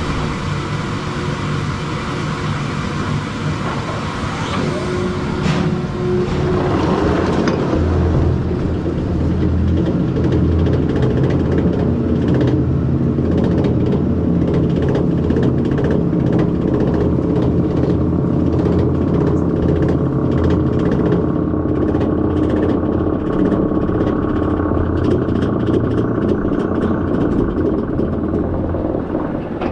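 Bolliger & Mabillard roller coaster train leaving the station and climbing its steep chain lift hill. A steady low drone of the lift runs under a rhythmic clatter of about three clicks a second, which grows plainer in the second half.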